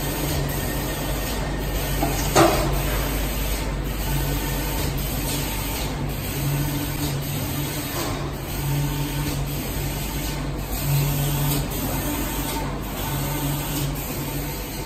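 Steady running noise of a board painting line's roller conveyor and drying tunnel, a low hum under an even hiss. A single sharp clack sounds about two seconds in.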